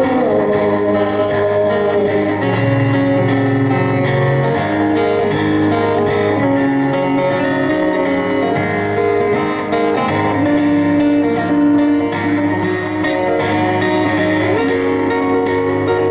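Acoustic guitar played live, a steady run of strummed and picked chords.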